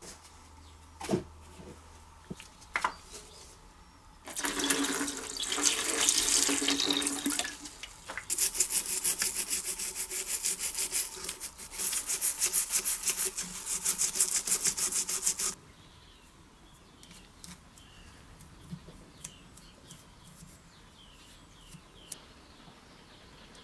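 A plastic scraper scraping crusted grime off a Briggs & Stratton carburetor body in rapid back-and-forth strokes, in two spells of several seconds each. Before the scraping there is a steady hiss lasting about three seconds.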